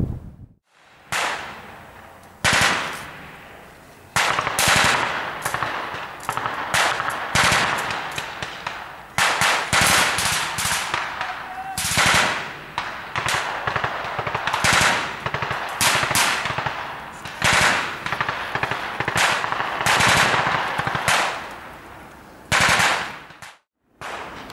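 Small-arms gunfire, rapid bursts and single shots, each trailing off in an echo.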